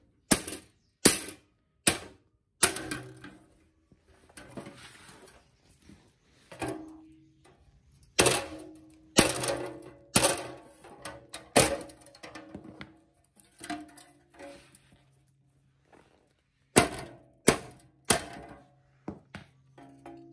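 Sharp metal knocks, about fifteen at irregular spacing with pauses between, as the dumper's bent sheet-metal belt cover is straightened; some knocks leave the panel ringing briefly.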